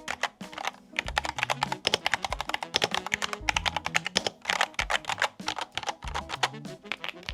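Mechanical keyboard typed on fast and steadily, a dense run of key clicks that stops briefly just under a second in, over background music with a low bass line.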